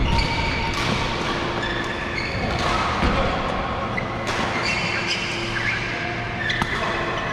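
Badminton hall sound: a few sharp hits of rackets on shuttlecocks, with short squeaks of court shoes on the floor and the echo of a large hall.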